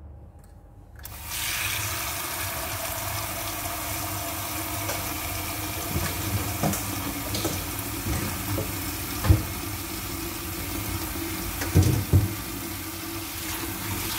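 Kitchen tap turned on about a second in, then water running steadily into a steel bowl of arugula leaves in a stainless steel sink. A few short knocks break in during the second half, the loudest about nine and twelve seconds in.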